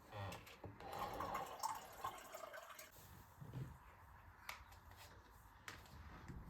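Liquid pouring and trickling into a container for about three seconds, followed by a few light clicks or taps.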